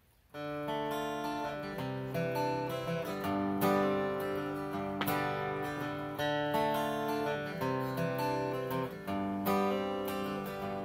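Steel-string dreadnought acoustic guitar played solo as an instrumental intro: chords strummed and picked in a steady rhythm, starting about half a second in.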